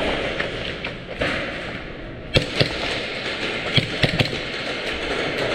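About five sharp cracks of airsoft gunfire in a short cluster, starting about two seconds in, over a steady hiss.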